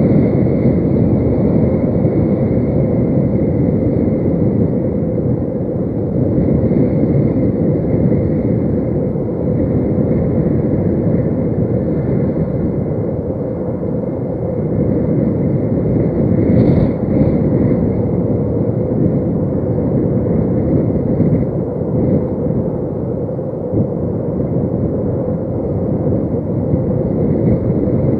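Wind buffeting a webcam's outdoor microphone: a loud, steady low rumble that swells and eases.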